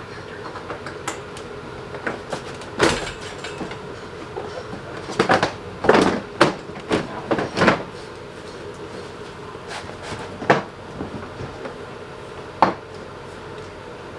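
Scattered knocks and plastic clatter of a car's front bumper cover being handled and fitted, loudest in a cluster around the middle, over a steady low hum.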